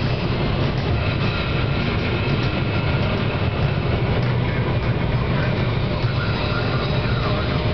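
Steady road and engine noise inside a car cabin at highway speed, a continuous low rumble of tyres and engine.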